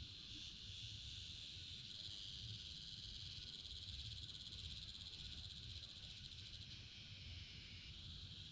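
Faint, steady, high-pitched insect chorus with a fast, dense trill. A low rumble sits beneath it, and the chorus eases slightly near the end.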